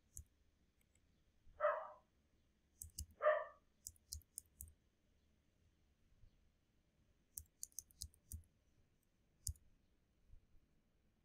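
Computer keyboard keys clicking in two short runs of typing. Two short dog barks, louder than the typing, come at about two and three seconds in.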